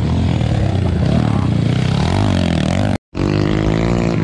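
Underbone race motorcycle engines revving up and down as the bikes ride the dirt track. The sound cuts out for a split second about three seconds in, then an engine note comes back steady and slowly climbing.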